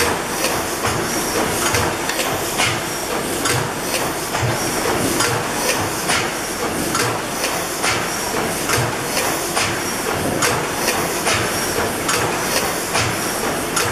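Snow-Worthington 600-horsepower reciprocating natural gas engine running, its valve gear and rocker arms clicking in a steady, even rhythm over a constant hiss.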